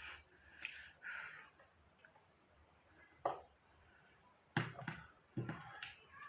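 A few scattered knocks and clicks from objects being handled and set down: one about three seconds in and two sharper ones near the end.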